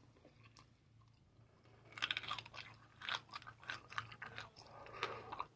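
Close-up chewing of a hard candy-coated grape, its shell cracking in many quick crisp crunches that start about two seconds in.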